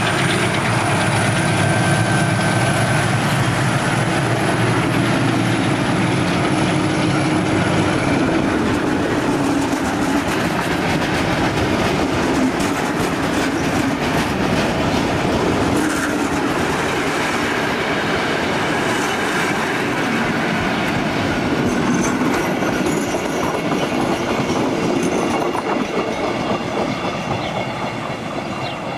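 Ex-DB class 221 (V200.1) diesel-hydraulic locomotive pulling a passenger train away under power, running on its one working engine, with a thin high whine over the engine for the first several seconds. Then the coaches roll past, their wheels clicking and rattling over the rail joints, and the sound fades slightly near the end.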